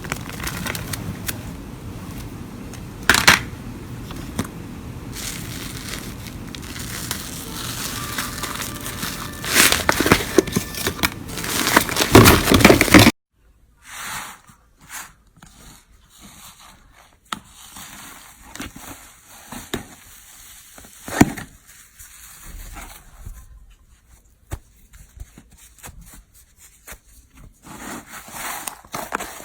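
Slime being squeezed and pressed by hand, crackling and popping, with a louder crunchy stretch shortly before the sound changes abruptly about 13 seconds in. After that change it goes quieter, with scattered small pops and clicks.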